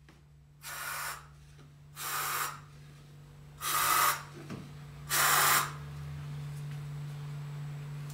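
Aerosol can of cockroach insecticide spraying in four short hisses, each about half a second long and roughly a second and a half apart.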